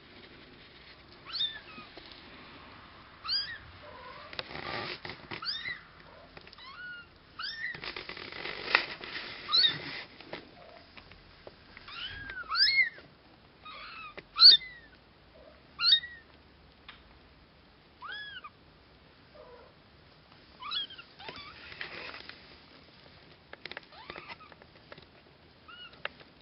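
Nearly three-week-old longhaired Bengal kittens mewing: many short, high mews that rise and fall in pitch, coming every second or two. Soft rustling in places.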